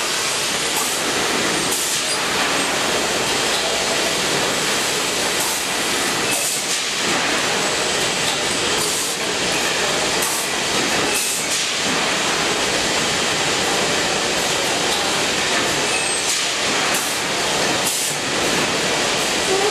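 Automatic bagging and palletising line running: a steady machinery hiss and rumble of conveyors and pneumatics, broken every second or few by a brief sharper sound as bags are moved and turned.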